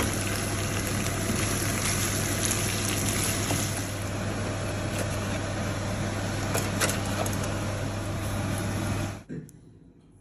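Steady rushing kitchen noise with a constant low hum and a few faint clicks, cutting off suddenly a little past nine seconds in.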